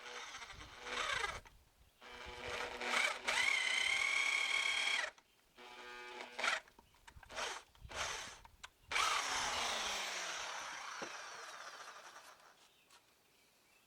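Handheld circular saw running in several short bursts as it cuts into a timber beam, its motor whine steady while cutting. About nine seconds in, it is released and winds down, falling in pitch as the blade coasts to a stop.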